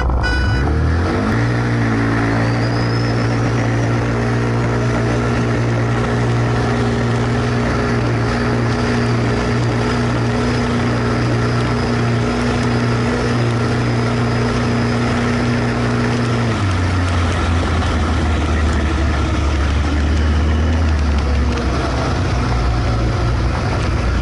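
Can-Am Maverick side-by-side's Rotax V-twin engine revving up hard from a standing launch, then held at steady high revs with a faint high whine above it and rushing wind, heard from inside the open cab. About two-thirds of the way through, the engine note steps down to a lower steady pitch.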